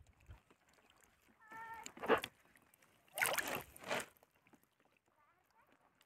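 Rustling and scraping bursts as a fish is handled in a nylon fishing net, loudest about two seconds in and again between three and four seconds. A short pitched animal call sounds just before the first burst.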